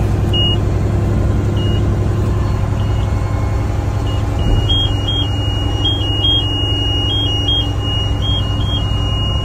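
Mack garbage truck's engine running steadily, heard from inside the cab, under a high electronic warning tone. The tone beeps about once a second at first, then from about four and a half seconds sounds almost without a break, stepping back and forth between two close pitches.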